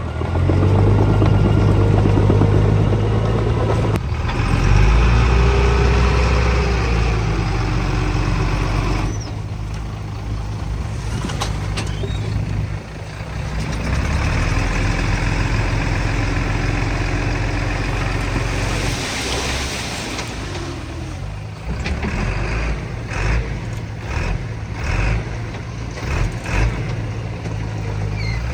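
Heavy diesel earthmoving machinery working: engines running loud and steady, now and then revving up and easing off, with a short hiss partway through and several clanks near the end.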